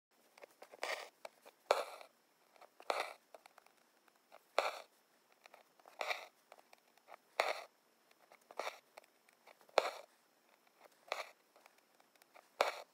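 Embroidery needle and thread being drawn through fabric stretched taut in an embroidery hoop: a short rasp with each stitch, about ten in a row at a steady pace of roughly one every second and a half.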